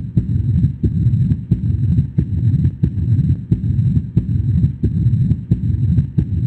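Heart sounds recorded through a stethoscope: a regular heartbeat with sharp valve clicks, over a continuous low rumble that fills the gaps between beats.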